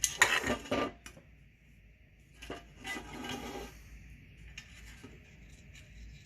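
Small metal screws and hardware clinking and rattling as they are handled, loudest in the first second, with a second spell of clatter about two and a half seconds in.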